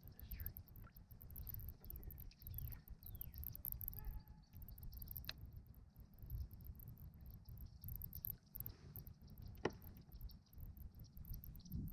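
Low rumble of wind on the microphone, with a few faint, short falling bird chirps in the first few seconds and two sharp clicks later on.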